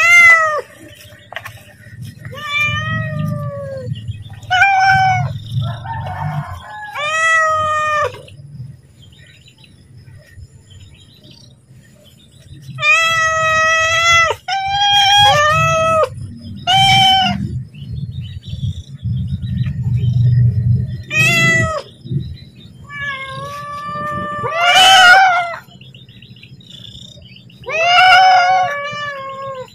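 Domestic cat meowing again and again, about a dozen drawn-out calls with a pause of several seconds near the middle: a cat calling to be fed.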